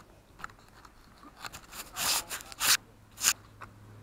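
Handling noise: a sleeve rubbing and scraping against the drone's onboard camera microphone as the drone is carried by hand. It comes as several short rustling bursts, the loudest about two seconds in.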